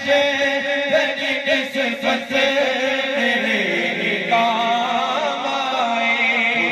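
A man sings a naat, an Urdu devotional poem, into a microphone in long, drawn-out melodic phrases. Held notes waver in pitch about halfway through.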